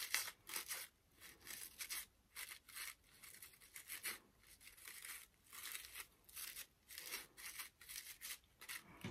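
Crepe-paper fringe rustling as fingers fan it out, a quick run of short, faint rustles.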